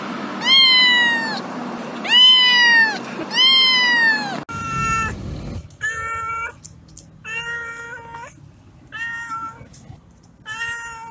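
Two domestic cats meowing. First come three loud, drawn-out meows that rise and then fall in pitch. After that a second cat gives about five shorter meows that hold a steadier pitch.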